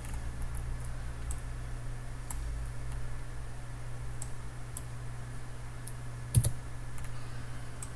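Computer mouse buttons and scroll wheel clicking now and then, irregularly, while navigating a 3D viewport, with one louder knock about six seconds in. A steady low hum runs underneath.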